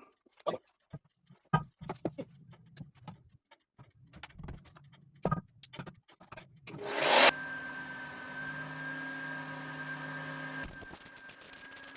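Scattered clicks and knocks as the magnetic drill is handled and set on the steel tractor rim. About seven seconds in, the mag drill's motor starts with a short rising rush and then runs steadily. About a second before the end, a high whine joins as the cutter starts into the steel rim.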